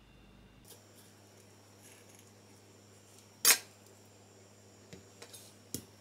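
Kitchenware knocking: one sharp clack about three and a half seconds in, then a few lighter clicks near the end, over a quiet, low room hum.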